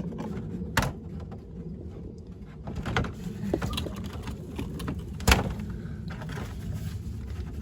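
A few sharp knocks, the loudest about five seconds in, over a steady low background rumble.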